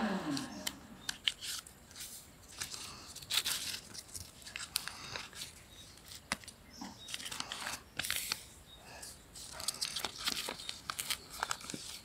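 A sheet of lined notebook paper being folded and creased by hand against a hard floor: irregular rustles, crinkles and sharp creasing strokes.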